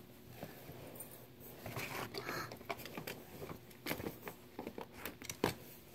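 Small plastic toy figures and a plastic playset being handled: scattered light clicks and taps with some rustling, and a sharper knock near the end.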